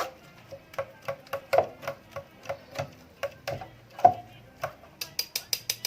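A utensil knocking against a strainer as blended date juice is strained, in a regular run of short knocks about three a second. Near the end the taps come quicker and sharper, with a metallic clink.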